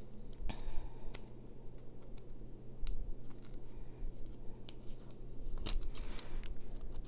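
Small craft scissors snipping paper, a few short scattered snips with light paper handling between them.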